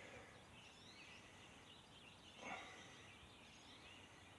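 Near silence: faint background noise with small high chirps, and one brief, slightly louder sound about halfway through.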